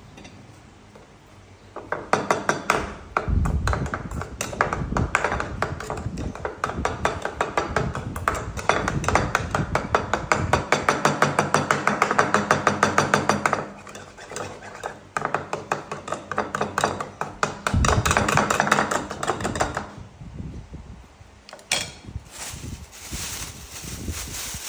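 A metal spoon working in a small ceramic bowl of mashed fruit: a fast run of clicks and scrapes, at times a steady four or five strokes a second. Near the end a plastic bag rustles.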